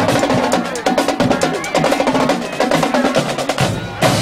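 Marching drumline playing a fast cadence of snare and bass drums, with a loud cymbal crash near the end.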